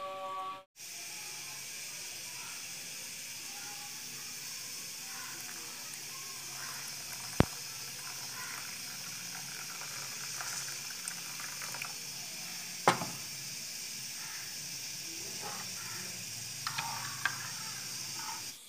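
Water poured in a thin stream into a ceramic bowl of semolina, a steady splashing hiss. Two sharp clinks sound about seven and thirteen seconds in, and a few light taps come near the end as a steel spoon stirs the mixture.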